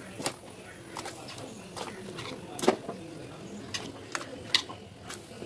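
Chunks of tapioca (cassava) dropped one at a time into a steel pot of boiling water, each landing as a short, sharp splash, about eight in all at uneven intervals, the loudest about halfway through.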